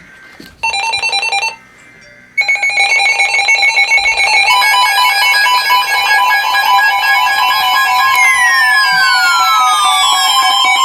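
Emergency Alert System alert tones: a short buzzing tone burst, then a continuous harsh mix of steady electronic tones with a rapid pulsing, which thickens about four seconds in. Near the end, repeated falling sweeping tones are added on top.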